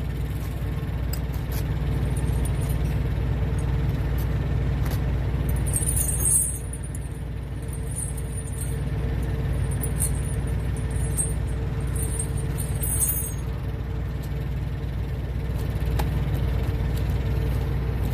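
Steel tire chains clinking and rattling in several short bursts as they are draped over and hooked around a semi truck's dual drive tires, over the steady low rumble of an idling truck engine.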